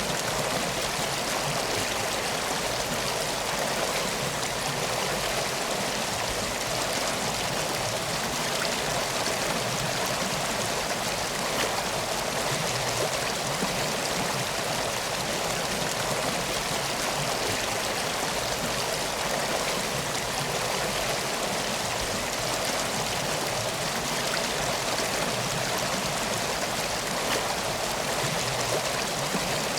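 River water flowing steadily, an even rushing with no breaks.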